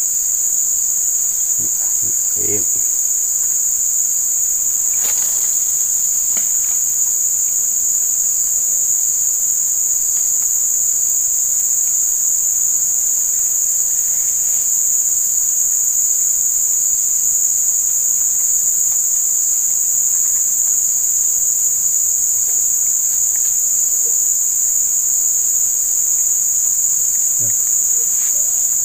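Steady, loud, high-pitched drone of an insect chorus in the forest, unbroken and even, with a few faint knocks in the first few seconds.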